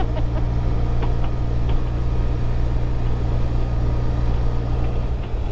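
Motorcycle engine running at a steady speed, a constant drone with no change in pitch, over road and wind noise.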